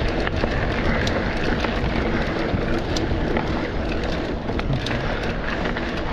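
Mountain bike rolling fast along a dirt trail: steady rumble of knobby tyres on packed dirt, with wind buffeting the microphone and scattered small clicks and rattles from the bike.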